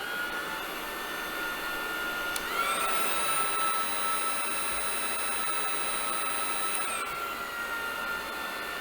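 Xiaomi Mi Handheld Vacuum Cleaner 1C cordless vacuum running with a steady high whine while its suction power settings are stepped through. About two and a half seconds in the whine jumps up in pitch and gets louder at a higher suction level, then drops back down a few seconds later.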